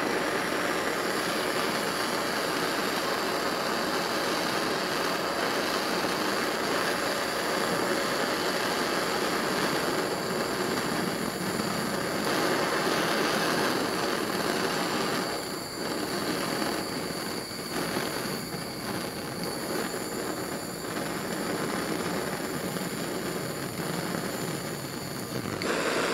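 Handheld gas torch flame burning with a steady rushing noise as it heats a copper cable lug so that solder is drawn into the wire. The noise becomes uneven and a little quieter from about halfway through.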